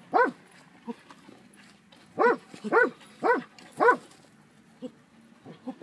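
Belgian Tervuren barking: a single bark, then after a pause of about two seconds a run of four sharp barks about half a second apart.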